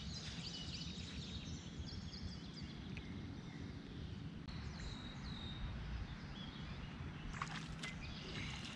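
Outdoor creekside ambience: birds chirping over a steady low rumble, with two sharp clicks near the end.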